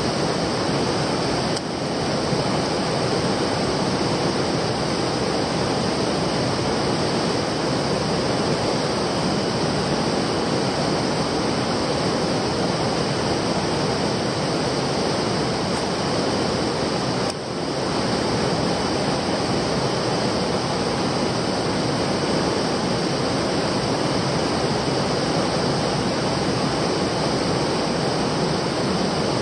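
Stream water rushing steadily and loudly, a constant noisy wash, with two very brief dips, about a second and a half in and again around seventeen seconds in.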